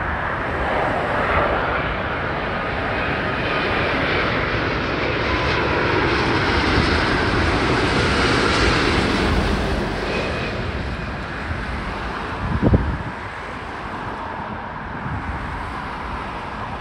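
Jet noise from a British Airways Airbus A350-1000's two Rolls-Royce Trent XWB engines on final approach. It swells as the airliner passes close, loudest about halfway through, then fades as it lands in the distance. A brief thump comes about three-quarters of the way through.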